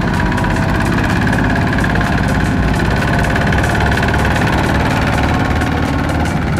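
Two-wheel walking tractor's single-cylinder diesel engine running steadily while pulling a trailer, with a rapid, even firing beat.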